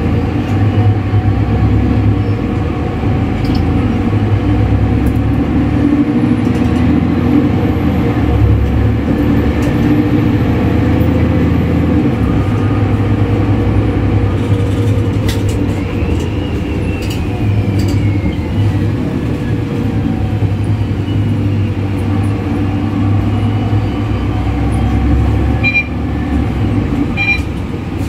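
Diesel city bus with a Voith automatic gearbox heard from inside: steady engine rumble, with the gearbox whistle as a high whine that falls in pitch about halfway through as the bus slows. Two short high beeps near the end.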